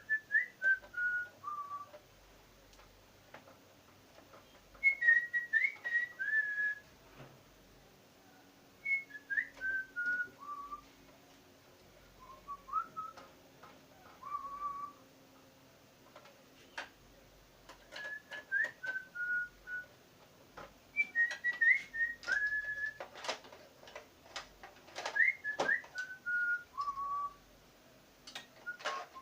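A person whistling a short tune, a little phrase of notes stepping down in pitch, repeated about every three to four seconds. From about halfway through, sharp clicks and taps of small parts being handled join in.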